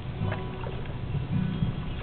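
Background music playing in the room, with low sustained notes.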